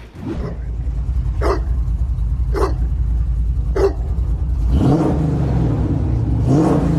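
Dog barking: three short, sharp single barks about a second apart, then two longer drawn-out barks, over a steady low rumble.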